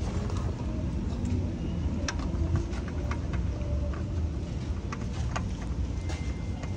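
Scattered light clicks and knocks of a gloved hand working on parts under a car's engine and transmission, over a steady low rumble.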